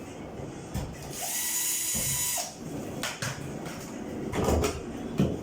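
A power drill runs in one whirring burst of about a second and a half, starting about a second in, followed by a few sharp knocks and clatter from handling parts.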